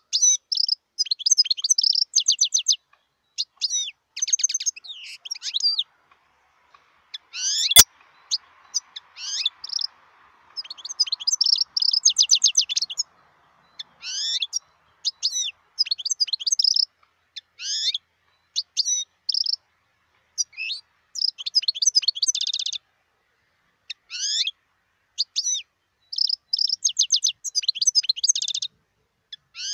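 European goldfinch singing: bursts of rapid twittering, fast trills and quick down-slurred notes, broken by short pauses. A single sharp click about eight seconds in.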